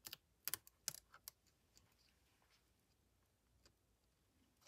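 A few sharp clicks and taps from fingers pressing and handling the replacement battery cells in a MacBook Pro's chassis, all within the first second and a half.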